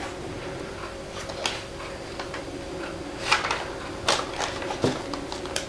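Paper pages of a handmade junk journal being turned and handled: a few short crisp rustles and taps, the loudest about three and four seconds in.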